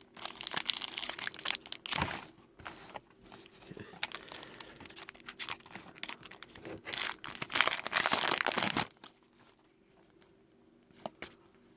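Trading-card pack wrapper crinkling and being torn open, in two louder spells, at the start and again about seven seconds in, then going quiet with a few faint small clicks near the end.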